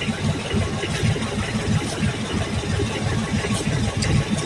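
Outrigger fishing boat's engine running steadily under way, a low rapid throb, heard on board.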